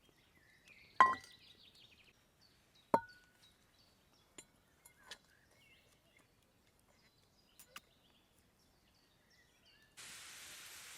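Two sharp clinks of hard kitchenware, each ringing briefly, about one and three seconds in, followed by a few lighter taps, with faint bird chirps. Near the end a steady rush of river water cuts in.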